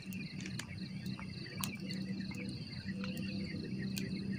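Wood campfire crackling, with a few sharp pops, over a steady, pulsing chorus of insects and a steady low hum underneath.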